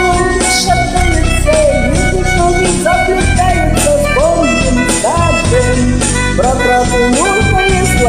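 Instrumental passage of a pop song's backing track: a steady bass line under a lead melody that slides up and down in pitch, with no sung words.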